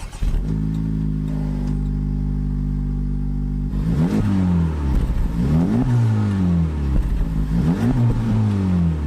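Honda Civic Type R's turbocharged 2.0-litre four-cylinder engine idling steadily through its exhaust, then revved three times in quick succession, each rev rising sharply and falling back more slowly toward idle.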